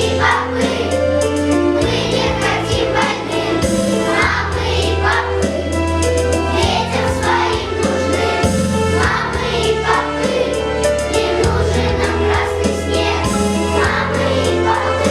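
A choir singing a song over an instrumental backing with a steady bass line and a regular beat.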